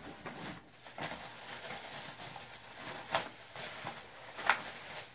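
Rustling and handling of a nylon backpack and the gear inside it as a bundle is dug out, with two sharper rustles, one about three seconds in and one near the end.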